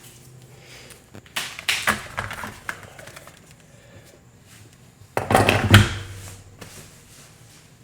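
Metal hand tools being handled and set down: a run of light clicks and clatter about a second and a half in, then a louder clunk and rattle about five seconds in.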